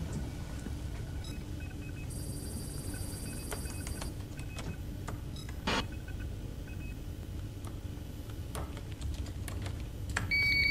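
Computer keyboard typing, soft scattered key clicks over a low steady hum. About ten seconds in, a steady high electronic alert tone starts.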